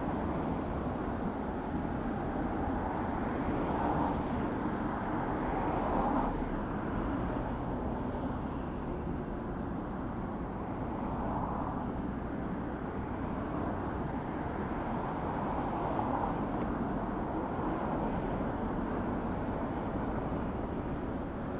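City street ambience: a steady rumble of road traffic, swelling several times as vehicles pass.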